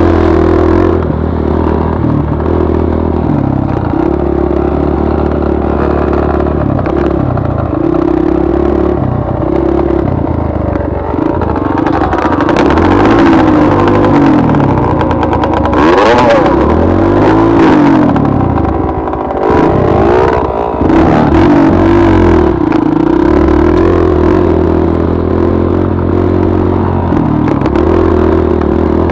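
Dirt bike engine running loud under changing throttle. Its pitch rises and falls repeatedly through the middle as it revs up and eases off, and it runs steadier near the start and end.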